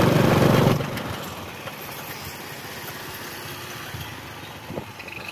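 Motorcycle engine running loud for just under a second, then dropping to a quieter, steady running sound mixed with road noise.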